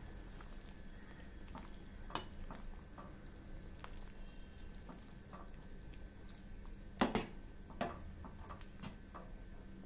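Steel ladle stirring thick sambar in a metal pot to mix in ghee: soft wet stirring with scattered light clicks of the ladle against the pot, the loudest knock about seven seconds in. A low steady hum runs underneath.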